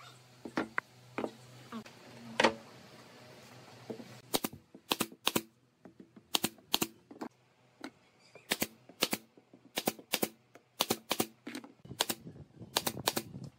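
Pneumatic nailer firing nails into wood, shot after shot from about four seconds in, two or three sharp snaps a second and often two in quick succession. Before that, a few scattered light knocks.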